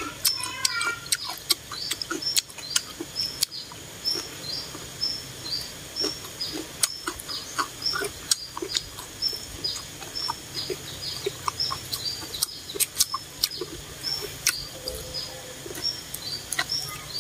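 Close-up chewing and slurping of a glass-noodle salad: scattered sharp mouth clicks and smacks. Behind it, a short high chirp repeats steadily about twice a second.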